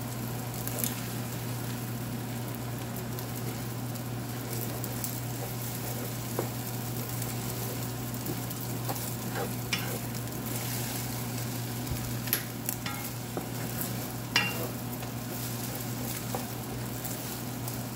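Beaten eggs sizzling in a hot honeycomb-textured stainless frying pan as a wooden spatula stirs and scrapes them into scrambled eggs. The spatula knocks sharply against the pan a few times.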